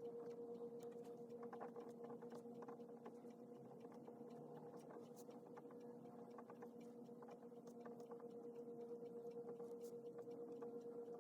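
Very faint handwriting: scattered light ticks and scratches of a pen on paper over a steady low hum.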